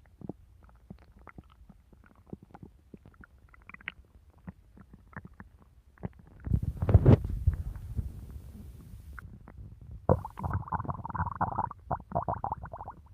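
Stomach growling: scattered small gurgles, then a loud low rumble about six and a half seconds in, and a longer run of gurgling from about ten seconds in until near the end.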